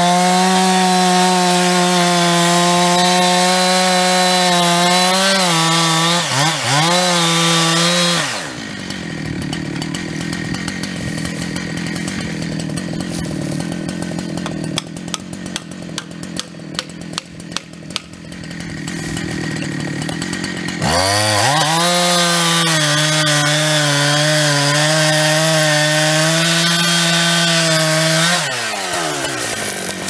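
Two-stroke chainsaw cutting into the base of a standing tree at full throttle, dipping briefly twice, then dropping to idle about eight seconds in. While it idles there is a run of sharp ticks. It revs back up to full-throttle cutting for about seven seconds and drops to idle again near the end.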